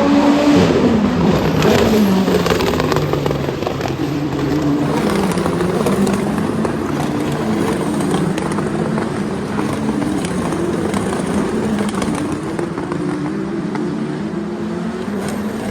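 Race car engines at speed, several at once. The pitch drops over the first couple of seconds, then rises and falls as the cars run past.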